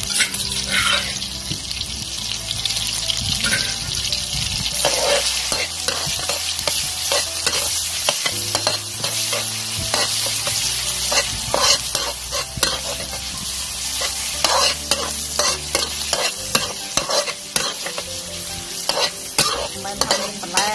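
Chopped red chilies and aromatics sizzling in hot oil in a metal wok. A metal spatula stirs them and scrapes against the pan in many short, irregular strokes.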